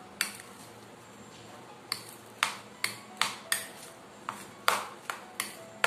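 Steel spoon clinking against a metal bowl while mashed boiled potato and spices are stirred together: about ten sharp, irregularly spaced clinks, most of them in the second half, some ringing briefly.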